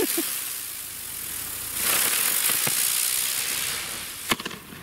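Klasek Medusa firework rocket hissing as its motor burns. The hiss surges louder about two seconds in, fitting the next stage of its three-stage climb, and a single sharp crack comes near the end.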